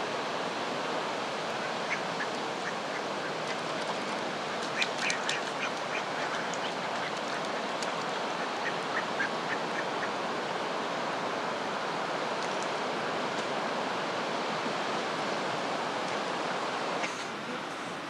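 Ducks on a river, mallards by their look, giving a few short quacks in scattered bunches over a steady rushing background noise. The background drops a little near the end.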